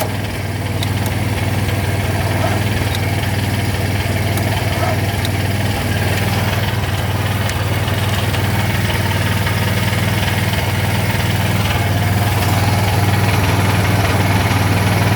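Landmaster's engine running steadily at a raised idle, set high to supply charge for a jump start. It gets a little louder about twelve seconds in.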